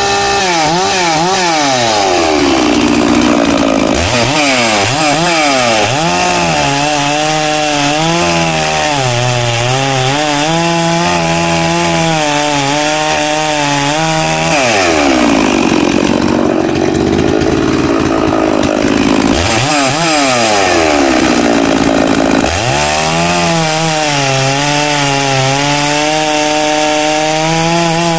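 Holzfforma G660 chainsaw, a Chinese clone of the Stihl 066 with a big two-stroke engine, running at full throttle while cutting through a log. Its pitch sags as the chain bites under load and sweeps back up as the cut eases, several times over. It is running on its out-of-the-box carburettor settings.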